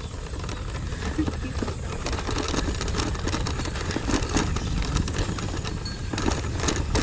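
Bicycle rolling over a rough dirt road: a steady low rumble with frequent rattles and knocks.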